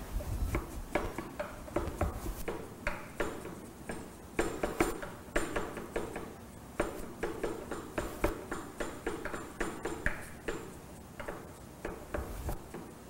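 Knife mincing garlic on a cutting board: a quick, irregular run of blade taps, several a second.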